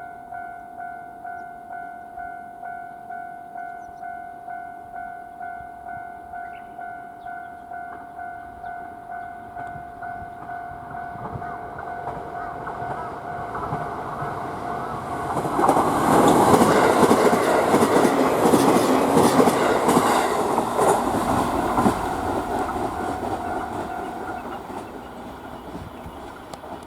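Japanese level-crossing warning bell ringing in a steady electronic ding-ding, just under two strokes a second, while a JR East E531-series electric train approaches and passes, its wheels clattering over the rail joints. The train is loudest about two-thirds of the way through and then fades, and the bell stops near the end.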